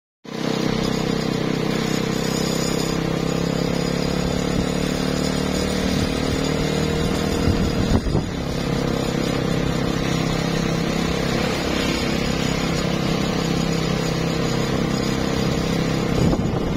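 Motor scooter engine running at a steady speed on the move, with a short click about eight seconds in.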